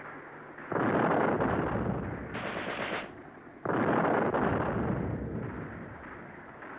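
Gunfire in battle: two loud bursts, about three seconds apart, each starting abruptly and dying away over a couple of seconds.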